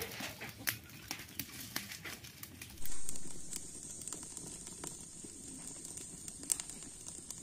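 Dry leaves and twigs burning in a clay mud stove, crackling with many small sharp pops. About three seconds in comes a sudden louder burst of noise, after which a steady high-pitched hum runs on under the crackling.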